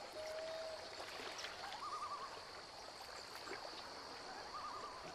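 Faint trickling and lapping of pond water around a kayak, with small drips. A short wavering call recurs every two to three seconds, and a steady held tone sounds in the first second.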